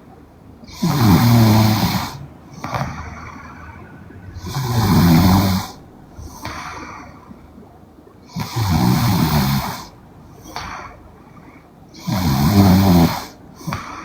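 A 20-year-old woman snoring in her sleep: four loud rattling snores, one about every three and a half seconds, with quieter breathing between them.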